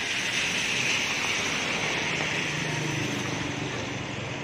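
Heavy rain falling on a paved road and roof, a steady hiss that swells in the first second and then eases a little, with a low vehicle engine hum underneath in the second half.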